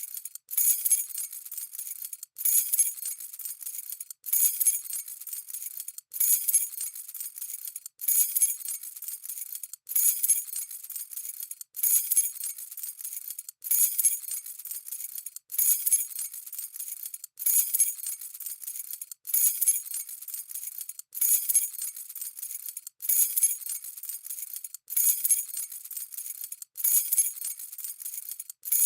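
A bunch of keys on a keyring jangling: the same short shake repeats about every two seconds, each starting with a louder jingle and separated by a brief silence.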